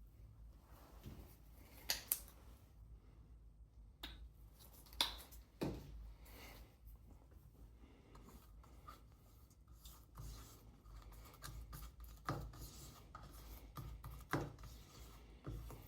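Hand work on a leather bag: soft rubbing and scraping with several sharp clicks and light knocks scattered through.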